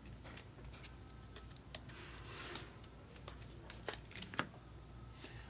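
Faint handling of trading cards and their packaging: scattered light clicks and ticks with a brief soft rustle, as cards are sorted and slid apart.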